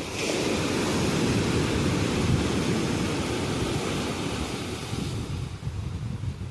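Ocean waves breaking on a beach: a wave crashes at the start and its wash slowly fades away over the following seconds.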